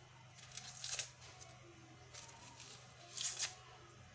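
Dry, papery red-onion skin crackling and rustling as fingers peel it off, in two short bursts: about half a second in and again about three seconds in.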